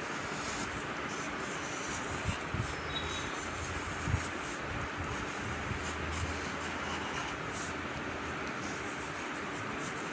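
Graphite pencil scratching on paper as outlines are gone over and darkened, over a steady background hiss, with a couple of soft knocks about two and four seconds in.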